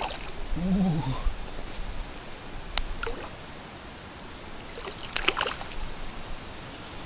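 Hooked crucian carp splashing at the surface while being played on a light float rod, with a cluster of sharp splashes about five seconds in.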